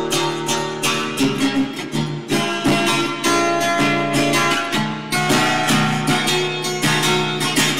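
Acoustic guitar strummed in chords: an instrumental passage of a song.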